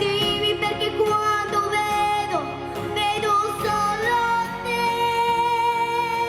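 Pop ballad with a female voice singing wordless, sustained notes over backing music, ending on one long held note.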